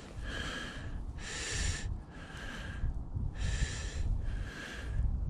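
A man breathing hard through his nose close to the microphone, short in-and-out breaths about once a second with a short pause about three seconds in.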